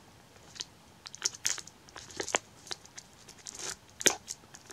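Plastic shrink wrap on a DVD case being picked at and torn open with a small plastic tool, crackling in short, irregular bursts, with a sharper snap about four seconds in.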